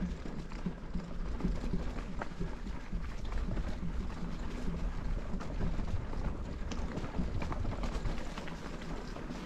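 Cannondale Habit full-suspension mountain bike ridden along a dirt trail: a steady rumble of tyres on the ground, with many scattered clicks and rattles from the bike.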